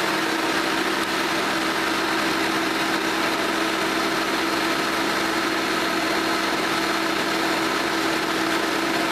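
1986–87 Hoover Elite bagged upright vacuum cleaner running steadily, its motor giving a constant pitched hum over an even rush of air.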